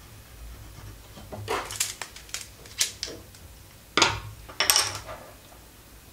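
Folding rule being folded up, its segments clicking and clacking shut in a quick run of sharp clicks, ending in two louder clacks about four seconds in.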